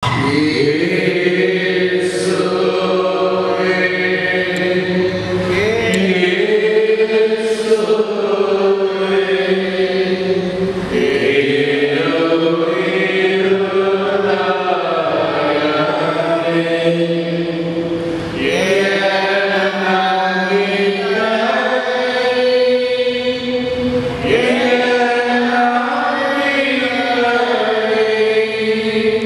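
Singing of a slow devotional chant, voices holding long notes that glide between pitches; it starts suddenly out of silence.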